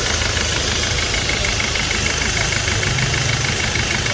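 Ford EcoSport 1.5-litre diesel engine idling steadily with a fast, even ticking. It is running smoothly with its stuck, faulty injector replaced.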